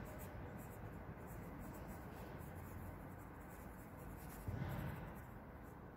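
Pencil scratching faintly on sketchbook paper in quick small circular strokes as the spiral petals of a rose are shaded in. A brief soft low sound comes about four and a half seconds in.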